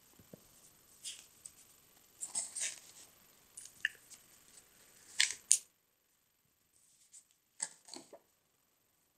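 Paper pages of a spiral-bound sketchbook being turned and handled: a series of short, crisp rustles and flicks, the loudest about five seconds in, with a couple more near the end.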